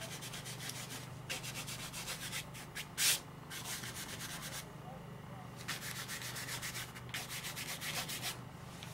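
Dry-loaded crescent stencil brush scrubbing back and forth on the painted surface: a dry, scratchy rubbing in runs of rapid strokes, with one louder stroke about three seconds in and a brief pause a little past the middle.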